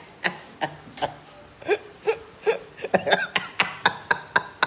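A person laughing in short, breathy bursts, coming faster in the second half.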